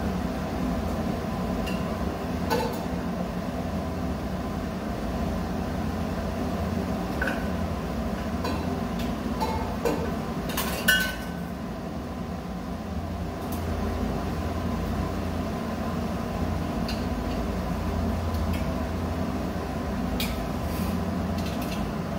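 Steady low mechanical hum of running machinery, with a few faint clinks and knocks of parts being handled, the loudest about eleven seconds in.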